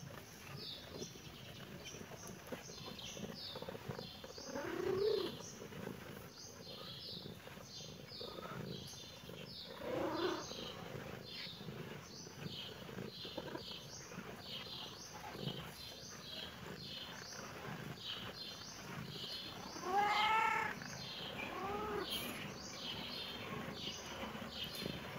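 A cat meowing four times, spaced out, the loudest about two-thirds of the way through. Small birds twitter continuously behind it.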